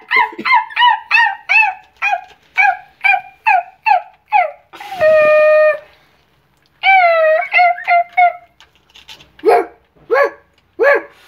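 Puppies yipping and barking: a quick run of short high yips, two or three a second, then a long held whine about halfway through and a few falling yelps, then lower, slower barks near the end.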